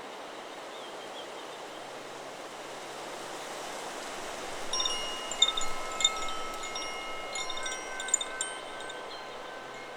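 Chakra Chimes 'Solar Plexus' wind chime moved by the wind, struck in a cluster of strikes from about five seconds in until about eight and a half, each leaving several clear tones ringing on. Under it is a steady hiss of wind, and earlier faint ringing dies away in the first couple of seconds.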